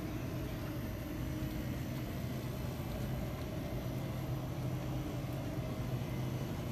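Steady low hum and rumble of store background noise, with a faint higher tone over it and no sudden events.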